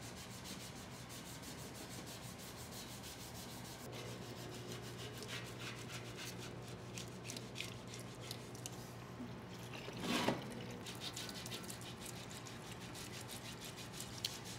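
A brush scrubbing a metal hydraulic tank in a parts washer: rapid, scratchy back-and-forth strokes that grow busier after a few seconds, over a steady low hum. One louder scrape comes about ten seconds in.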